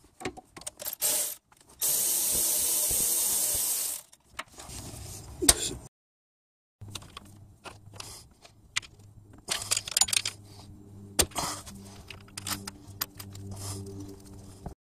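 Light metal clicks and scrapes of hand tools and gloved fingers working at a timing belt tensioner pulley, with a loud steady hiss lasting about two seconds near the start. A low steady hum runs under the later clicks.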